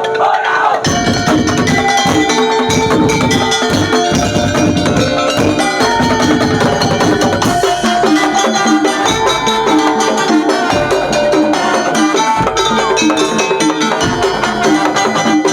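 Madurese daul (tong-tong) percussion ensemble playing: wooden slit drums and drums beat a fast, dense rhythm under ringing pitched metal tones.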